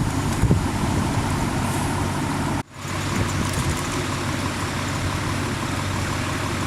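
Motor vehicle engine idling steadily, a low even hum, with a brief break in the sound a little before the midpoint.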